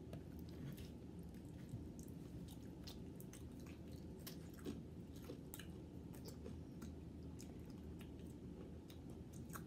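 Faint close chewing and mouth sounds from eating ice cream and crisp waffle-cone bowls, with many small crackling clicks scattered throughout and a couple of louder ones about two and five seconds in.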